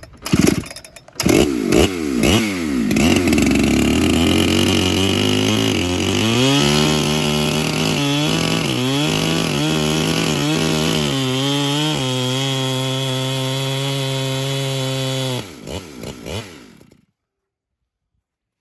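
Electric chainsaw fitted with a ripping chain spinning up, then cutting lengthwise through a small log in an Alaskan mill, its pitch dipping again and again as the chain loads in the wood. About three-quarters of the way in it is switched off and winds down to silence.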